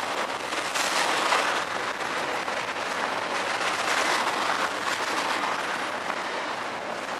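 CSX double-stack intermodal train's container well cars rolling past close by, a steady rolling noise of steel wheels on rail with a few faint clicks.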